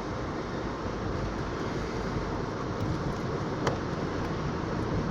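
Steady road and engine noise heard inside a moving car, with one brief click about three and a half seconds in.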